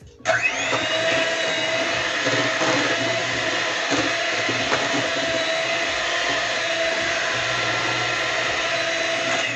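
Electric stand-and-hand mixer whisking thick scallion pancake batter in a steel bowl. The motor whines steadily, spinning up about a third of a second in and stopping just before the end.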